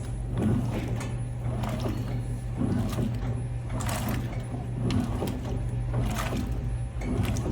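Electrolux LTM16 washing machine in its wash phase: a steady motor hum with water and the load sloshing in irregular surges every second or so.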